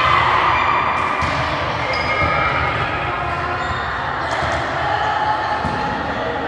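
Voices of players and spectators in an echoing sports hall, with a few sharp knocks like a volleyball bouncing on the wooden floor.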